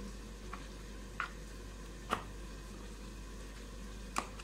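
Plastic ice-cream mold caps being pressed onto filled molds: a few short light plastic clicks, the loudest about two seconds in and near the end, over a faint steady background.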